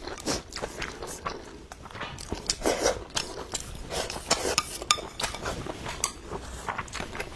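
Eating utensils clicking and scraping against bowls and plates, with a few soft bites and mouth sounds in between: many short, irregular taps.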